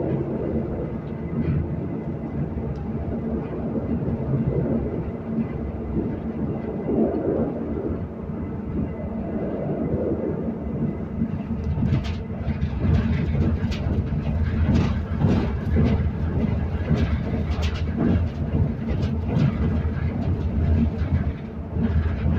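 Passenger train running, heard from inside the carriage: a steady low rumble, joined about halfway through by a quick, irregular clatter of knocks and rattles.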